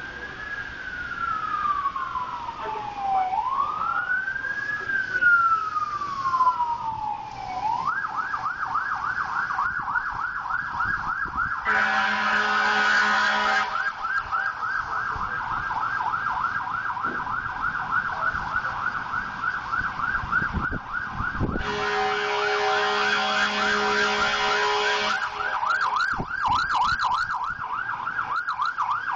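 Emergency vehicle siren on a slow wail, rising and falling about every four seconds, then switching about eight seconds in to a fast yelp that runs on. Two horn blasts sound over it, one about twelve seconds in lasting about two seconds, and a longer one about twenty-two seconds in.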